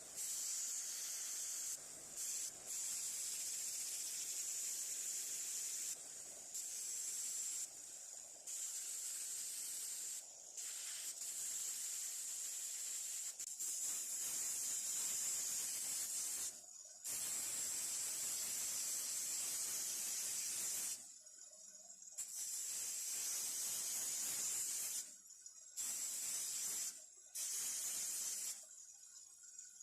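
A spraying hiss that switches on and off abruptly, in runs of one to a few seconds, many times over.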